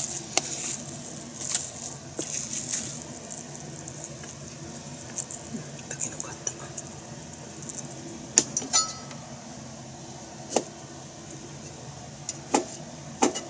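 Hands digging and stirring through the bran of a rice-bran pickling bed (nukadoko) in a plastic tub, the bran rustling, loudest in the first few seconds. Scattered sharp clicks follow, and near the end a kitchen knife knocks twice on a cutting board as a pickled vegetable is sliced.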